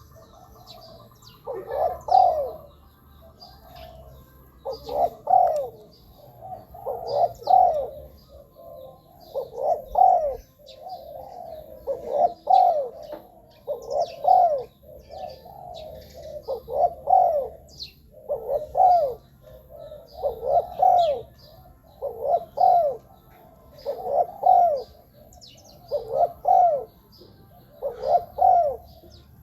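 Spotted dove cooing over and over: a short phrase of a few coo notes roughly every two seconds, about a dozen phrases in all. Faint high chirps of small birds sound behind it.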